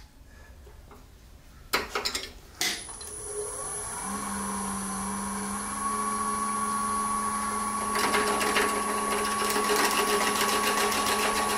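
A few clicks and knocks, then a wood lathe's motor starts and runs up to a steady hum with a whine, stepping up in pitch about four seconds in. From about eight seconds in, a louder, rougher noise joins as a 3/8-inch twist drill bit in the tailstock chuck is fed into the spinning pen blank.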